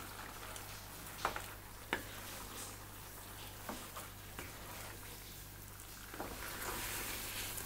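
A spatula stirring thick chicken curry and mashed tapioca in a nonstick pan, knocking lightly against the pan several times. Under it are a faint sizzle and a low steady hum.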